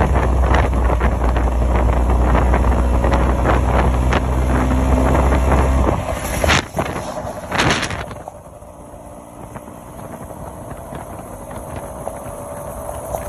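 Wind buffeting the microphone over the 2005 Vespa PX150's two-stroke single-cylinder engine while riding. About six seconds in the wind noise drops away after two knocks, leaving the engine running quieter with a slowly rising note.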